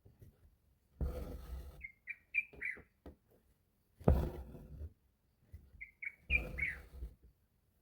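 Embroidery thread drawn through taut hooped fabric in three rasping pulls, each about a second long. Between them come short, high bird chirps in little clusters.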